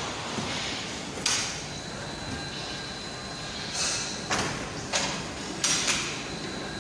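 A galvanizing plant's crane moves a rack of steel pipes over the zinc kettle. Steady shop noise with a faint high whine is broken by a handful of short, sharp clanks and hisses, most of them bunched in the second half.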